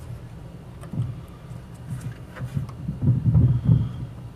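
Low, dull thumps and rumbling handling noise with a few faint clicks as small metal motor parts are worked into place by hand, heaviest near the end.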